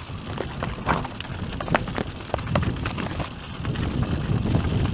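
YT Industries Capra AL Comp enduro mountain bike descending a rocky trail: tyres rumbling over loose stones, with frequent clicks and rattles from the bike, getting louder about three and a half seconds in.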